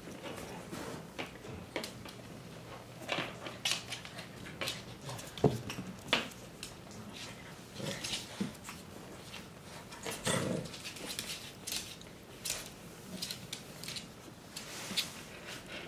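Malshi (Maltese × Shih Tzu) puppies and their mother play-fighting: scattered short puppy noises and scuffling, with claws tapping on a hardwood floor. The loudest come about five and ten seconds in.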